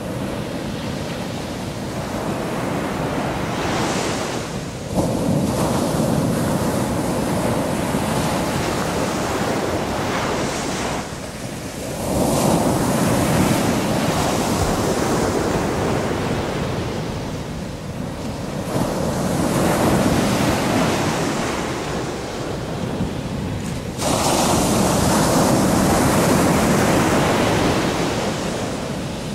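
Ocean surf breaking on the shore: a steady wash of water with a surge each time a wave breaks, about four in all, the sharpest coming about five, twelve and twenty-four seconds in.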